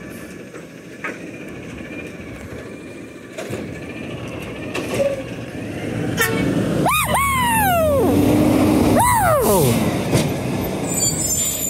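Natural-gas-powered New Way Sidewinder side-loader garbage truck pulling away. Its engine note rises and grows louder as it accelerates past. Two rising-and-falling whoops from a person's voice ring out over it, about seven and nine seconds in.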